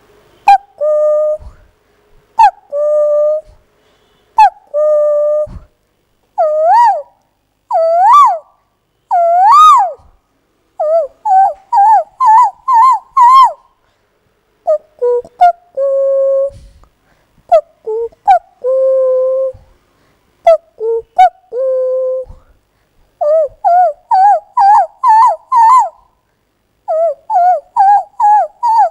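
A woman mimicking an Asian koel's call with her mouth. Repeated two-note calls drop from a higher note to a lower one, then swooping rising calls climb higher each time. Quick runs of short rising notes come after, and the pattern repeats.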